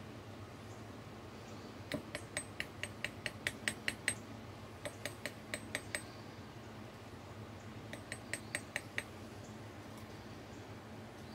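Light metallic ticking of a thin metal pick tapping against the tin cast in its mold, in three quick runs of about five or six taps a second. Each tap rings briefly.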